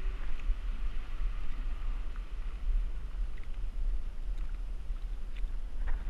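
Low, fluttering rumble of wind buffeting the microphone out on a kayak, with water against the hull, a few faint ticks and a light knock near the end.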